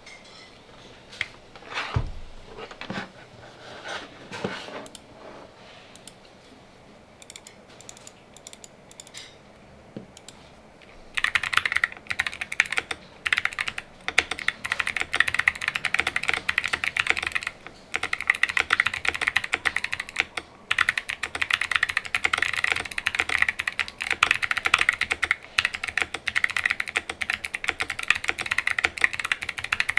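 Mechanical keyboard with clicky Kailh Box Jade switches in an aluminium plate, full foam and DROP MT3 keycaps being typed on: a few scattered key clicks and knocks at first, then fast continuous typing from about eleven seconds in, with two brief pauses.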